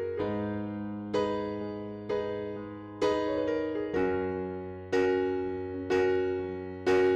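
Background music: gentle piano or electric piano chords struck about once a second, each ringing and fading.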